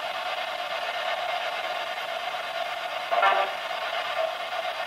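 Quiet-room tone: a steady hiss with a constant mid-pitched hum, and one brief, louder, unidentified sound about three seconds in.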